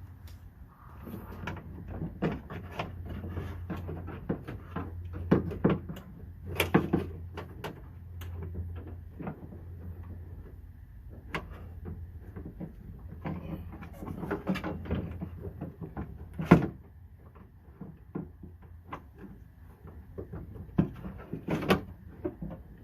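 Irregular clicks, knocks and light rattles of parts being handled and fitted inside a car door: the door lock actuator and its linkage rods going in, with one sharp knock about 16 seconds in. A steady low hum runs underneath.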